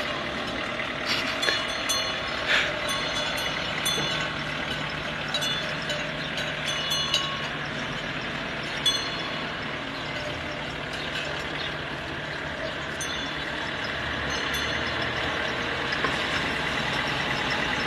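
Outdoor street noise: a vehicle engine runs steadily under a continuous background hiss. Scattered short, sharp clinks and clatters come thickest in the first half, with a loud single knock about nine seconds in.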